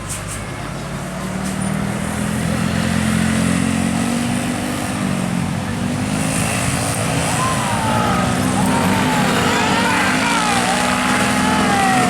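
A large tour bus's engine running as it approaches, growing louder, its pitch shifting about halfway through. Voices call out over it in the second half.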